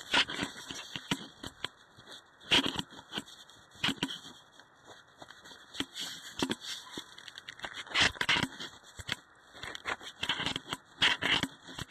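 Irregular crunching footsteps and the rustle of clothing and gear as a player moves over cold ground, with louder crunches about 2.5 s, 8 s and 11 s in.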